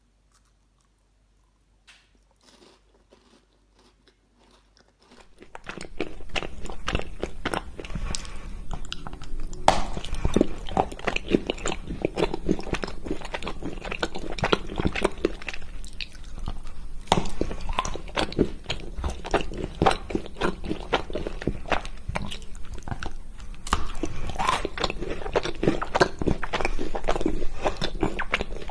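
Close-miked biting and chewing of solid chocolate: faint chewing at first, then from about five seconds in loud, crisp snaps and crunches as pieces of a thick chocolate disc are bitten off and chewed, in runs with short pauses.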